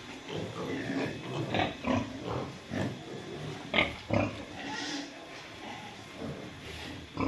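Pigs grunting in short, irregular grunts, several animals at once, with a sharper, louder call a little before the four-second mark.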